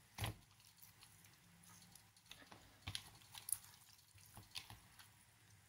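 Hand squeezing and turning raw chicken pieces in a soy-sauce marinade in a bowl: faint, scattered wet squelches and clicks.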